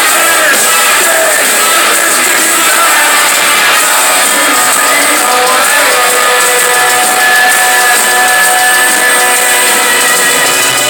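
Rock band playing live through a PA, with electric guitars and drums, loud and unbroken.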